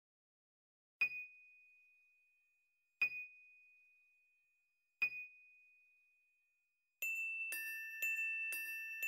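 Music: a single high bell-like note struck three times, two seconds apart, each ringing out, then from about seven seconds in a quicker figure of bell-like notes about twice a second, the opening of a song.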